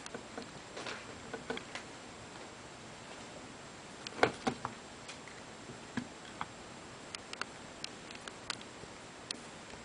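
Scattered light clicks and taps from handling the opened battery charger's circuit board and case, with a louder cluster of knocks about four seconds in.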